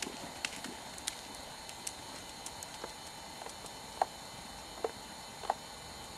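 Hoofbeats of a ridden horse on an arena surface, faint and sparse as the horse moves away, over a steady background hiss. Three sharper knocks come in the second half.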